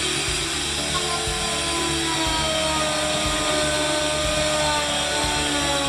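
Power tool running at full speed with a steady high whine, machining a rebate into a recycled plastic composite board on a jig; its pitch sags slightly as it cuts.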